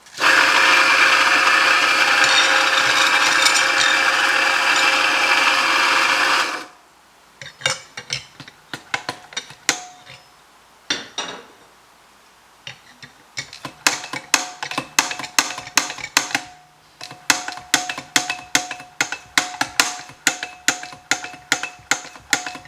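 Mazzer Mini doser grinder's motor running for about six and a half seconds, grinding out the old beans left in it to purge it after the grind was set finer, then stopping abruptly. It is followed by a run of sharp ratcheting clicks from the doser lever being pulled again and again, scattered at first, then steady at about two to three a second.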